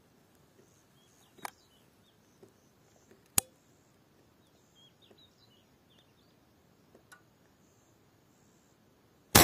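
Faint chirps of small birds over a quiet background, with a few sharp clicks, and just before the end a loud sharp crack, the shot of a PCP air rifle.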